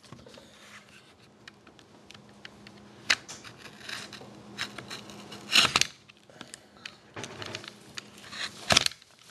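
Hands handling and opening a cardboard trading-card box: scattered scrapes, rustles and sharp knocks. The loudest knocks come about three, five and a half and eight and a half seconds in.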